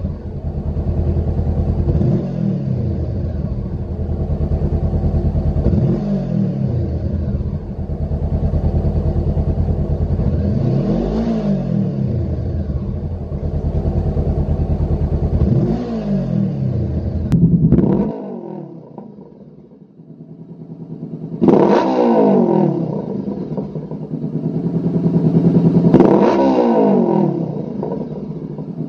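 Honda CBR500R 471 cc parallel-twin engine revved at standstill in a series of throttle blips, each rising and falling in pitch, at first through the stock exhaust. After a brief fade the engine is revved again, with two stronger blips, through a Lextek MP4 full stainless aftermarket exhaust system.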